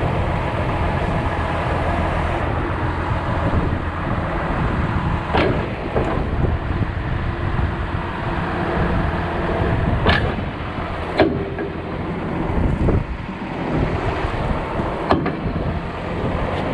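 John Deere 710D backhoe's diesel engine running steadily while the backhoe boom is worked from the seat, with four sharp knocks spread through it.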